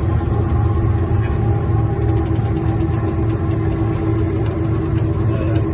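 A large ship's engines running steadily: a continuous low drone with a constant hum.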